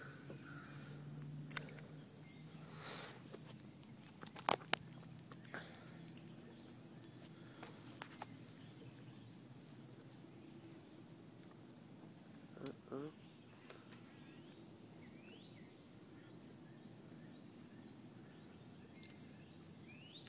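Steady, faint chorus of insects with a few scattered clicks and knocks; the loudest are two sharp clicks about four and a half seconds in.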